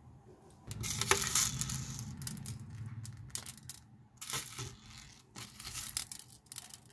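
Rustling, crackling noise from colourful sugar sprinkles being handled and scattered by hand over glazed donuts. It is loudest about a second in, then comes in shorter bursts.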